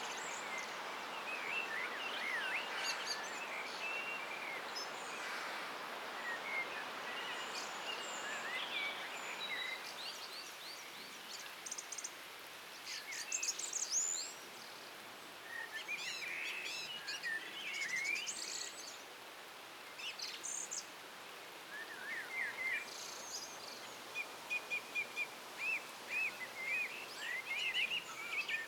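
Several songbirds singing and chirping over a steady hiss, with calls overlapping throughout. The hiss is stronger in the first third and eases after about ten seconds.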